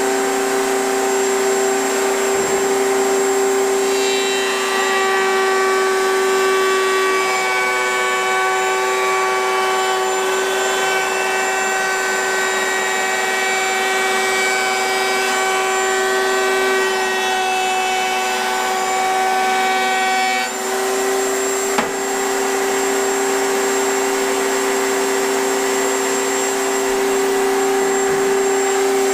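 Router on a router table running at speed with a steady high whine, its 1/4-inch round-over bit cutting the edge of a Corian cutting board. The tone grows fuller with extra higher tones from about four seconds in until about twenty seconds in, then drops back, with a single click shortly after.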